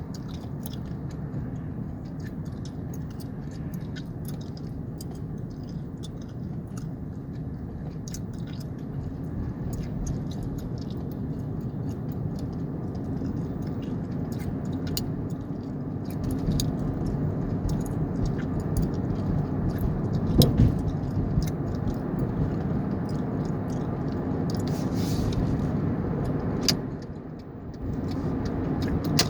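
Gum chewing inside a car's cabin: scattered sharp smacks and clicks of the mouth over the steady low rumble of the car creeping in traffic, with one louder thump about two-thirds of the way through.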